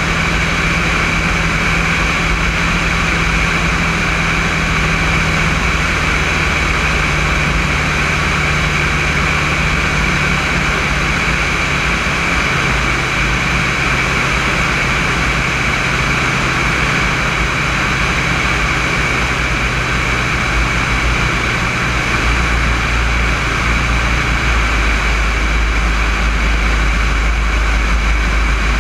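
Alpi Pioneer 200 light aircraft's engine and propeller running steadily in flight, with airflow rushing past the wing-mounted camera. The low engine note drops in pitch in a few steps partway through, and the deep rumble grows stronger near the end.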